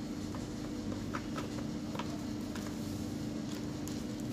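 Rechargeable table fan running with a steady hum, with a few light clicks scattered through.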